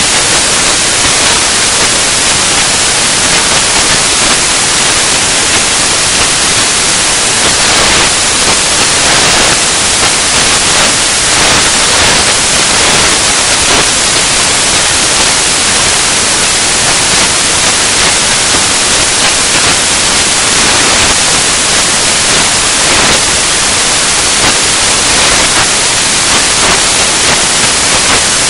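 Loud, steady static hiss like white noise, even across the whole range, with nothing else standing out in it.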